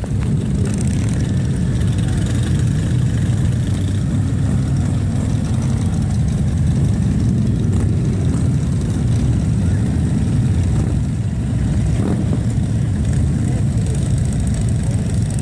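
Massed motorcycle engines, dozens of big touring bikes idling together in a line as one steady low rumble.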